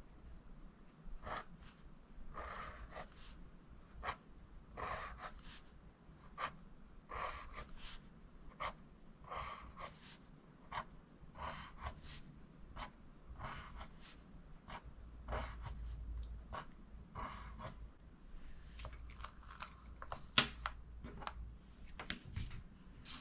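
Pencil sliding on paper, writing the uppercase letter J over and over: a run of short strokes, about one or two a second, with a single sharp click near the end.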